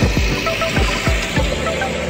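Background music with a steady beat: deep kick-drum hits about three times a second under short, bright melody notes.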